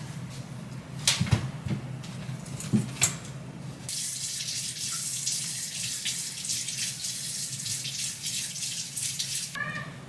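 A water tap running into a sink for about five and a half seconds, then shut off, with a few knocks before it starts and a brief high squeak just after it stops.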